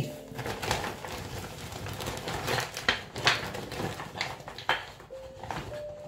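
Woven plastic shopping bag rustling and crackling as hands rummage in it, with several sharp clicks.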